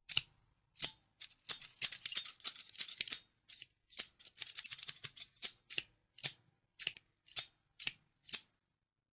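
Scissors snipping, crisp sharp snips. Two quick runs come in the first half, then single snips about every half second.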